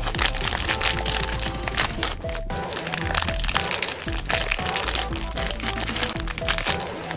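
Foil blind-box bag crinkling and crackling sharply as hands open it, over light background music.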